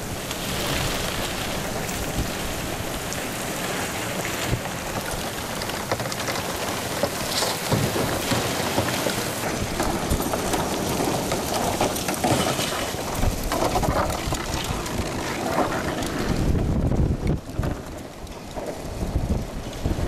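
Heavy wind-driven rain pouring down on pavement in a severe thunderstorm, a dense steady hiss. About three-quarters of the way in, strong gusts take over as a deep rumble of wind buffeting the microphone.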